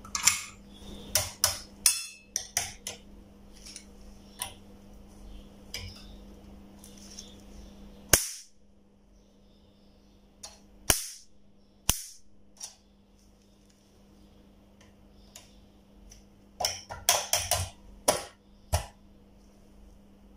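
Electronic bug zapper's high-voltage grid arcing: sharp electric snapping cracks that come in irregular clusters and single loud snaps, over a steady low hum. It is the sign of the repaired voltage-multiplier section now producing high voltage.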